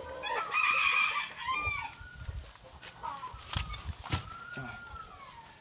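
Native chickens: a rooster crows loudly for about a second and a half near the start, followed by clucking and a fainter drawn-out falling call, with two sharp knocks in the middle.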